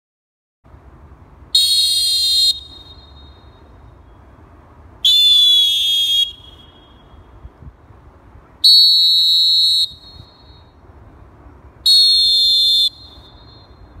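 Four long, full-power blasts on different referee whistles, one after another, each lasting about a second and all high and piercing. The second blast wavers and bends in pitch. A faint low background noise sits between the blasts.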